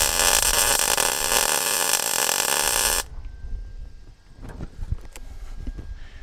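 Electric welder's arc crackling steadily as a weld is laid on the steel bracket, about three seconds long and stopping abruptly, followed by a few light metallic clicks.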